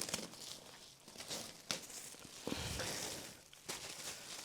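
Plastic cling wrap crinkling and rustling while plastic seed flats are handled, with scattered light clicks and knocks.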